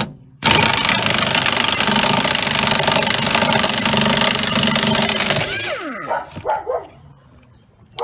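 Pneumatic impact wrench loosening a 14 mm seat-belt anchor bolt, releasing the tension on a seat belt locked in an accident. A short blip is followed by a steady loud rattle for about five seconds, which tails off near six seconds.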